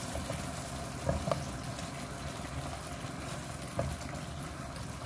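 Butter melting in hot oil in a kadai, sizzling steadily, with a few small clicks about a second in and again later.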